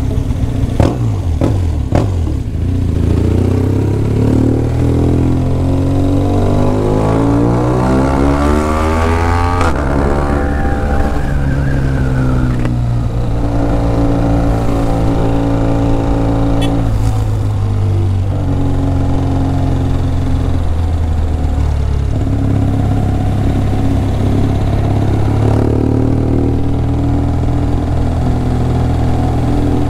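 BMW R1200GS boxer-twin engine under way, heard from the rider's seat. It accelerates with the engine note climbing for several seconds, drops at an upshift about ten seconds in, then runs at a steadier cruise with a few more gear changes.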